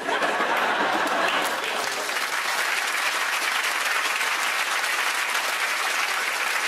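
Studio audience applauding, starting suddenly and holding at a steady level.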